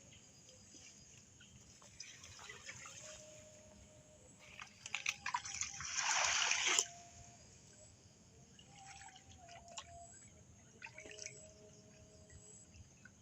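Water dripping and trickling, with a louder rush of splashing, pouring water from about four and a half to seven seconds in.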